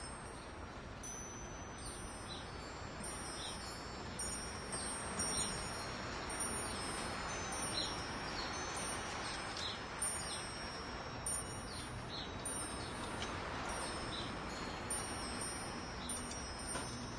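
Wind chimes ringing, struck irregularly, with long, overlapping high-pitched tones, over a steady soft hiss.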